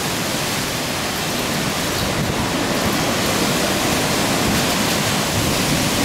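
Typhoon wind and heavy rain: a loud, steady rushing noise.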